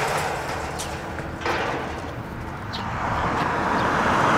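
A car driving by on the street, its road noise swelling toward the end, with a single sharp knock about one and a half seconds in.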